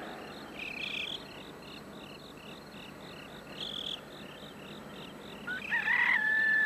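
Crickets chirping at night in a steady rhythm, about three chirps a second, with a few louder chirps among them. Near the end a loud whistling tone rises and then holds steady for about a second.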